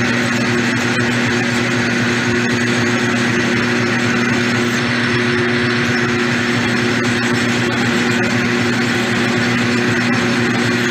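Myford 254 lathe running steadily under load while a twist drill bores out the rusted steel axle shaft in a rear hub: a constant hum with a higher cutting hiss over it.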